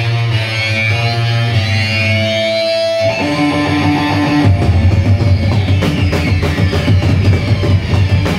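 Live rock band playing loud on stage. Electric guitar and bass hold ringing chords at first, then a little past halfway the drums and cymbals crash in and the full band plays on together.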